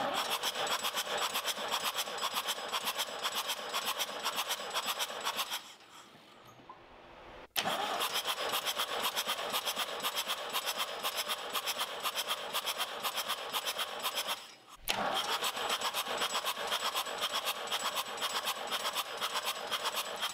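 A 4.2-litre diesel in a Ford 5000 tractor being turned over on its starter for a compression test, with an even pulse of about three or four beats a second as the cylinders come up on compression. It cranks in three runs, stopping briefly about a third of the way in and again about two-thirds through.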